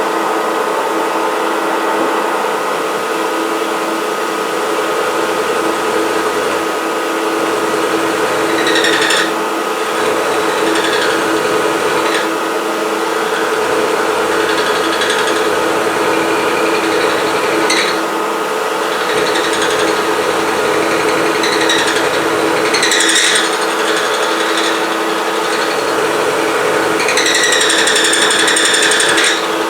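Milling machine roughing out a pocket in a metal block with a 3/4-inch high-speed-steel end mill: a steady machining drone with several brief high-pitched ringing squeals from the cutter, the longest near the end.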